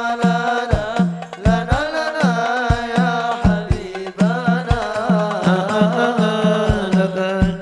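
Sholawat, a devotional song praising the Prophet, performed live: a voice sings a long, ornamented melody that bends and glides, over a steady beat of drums.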